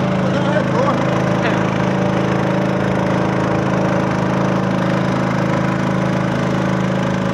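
A small wooden boat's motor running steadily as the boat travels under way, holding one even pitch and speed with no revving.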